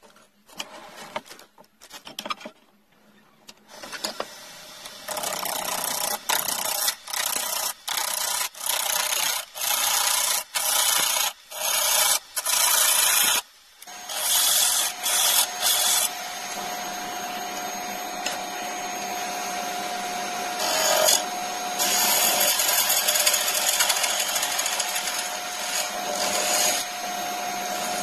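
Wood lathe turning a blank of stabilized wood, a hand chisel cutting it. At first the cut comes in a string of short scraping strokes with brief gaps as the square corners are knocked off. From about halfway it runs as one steady cut with a faint whine, the blank now round and shavings peeling off.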